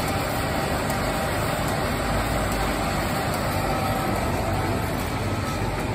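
Steady low rumble and hiss of running machinery: the background hum of a convenience store's drink machines and refrigeration.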